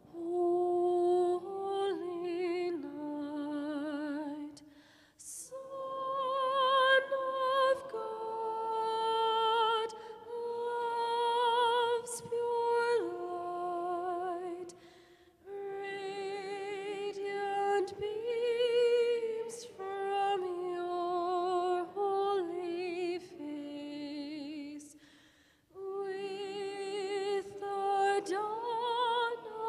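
A solo singer sings a slow melody, holding long notes with a clear vibrato, in phrases broken by short breath pauses.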